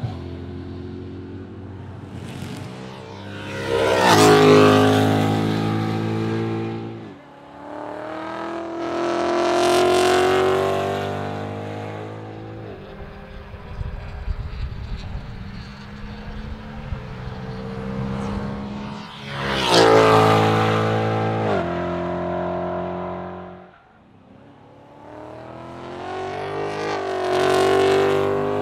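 Ford Mustang race car driving past at speed several times. The engine note swells as the car comes near and its pitch drops as it goes away, with a rougher, crackly stretch under lighter throttle in between.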